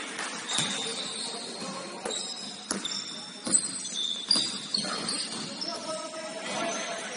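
Basketball game on an indoor court: a ball bouncing in sharp knocks, with short high-pitched sneaker squeaks on the floor and players' voices in the background.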